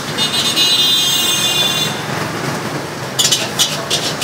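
Busy street-stall background of traffic noise and clatter. A high-pitched squeal holds for under two seconds near the start, and a few quick clinks of dishes and utensils come near the end.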